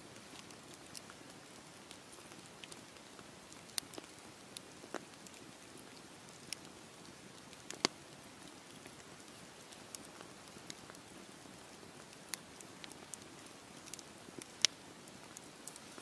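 Wood campfire burning with a faint steady hiss and irregular sharp crackles and pops from the logs. The loudest pops come about eight seconds in and near the end.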